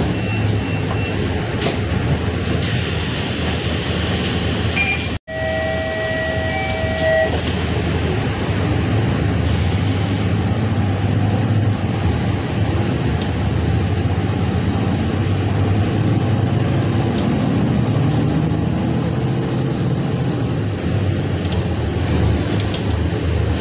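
Inside a city bus: steady engine drone and road noise as the bus pulls away from a stop and drives on. About five seconds in, a steady two-tone electronic beep sounds for about two seconds.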